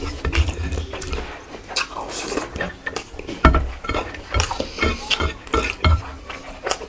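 Close-miked eating: irregular chewing and mouth sounds with clinks of a plate or dish as the food is eaten.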